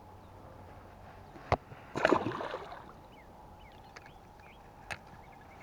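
A sharp click, then a brief splash of pond water that dies away within about half a second; another faint click near the end.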